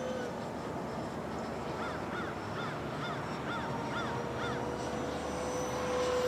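The E-flite Viper's 70mm electric ducted fan whines steadily as the jet flies at a distance, growing louder near the end. In the middle a bird calls a quick series of about seven short rising-and-falling notes, roughly two a second.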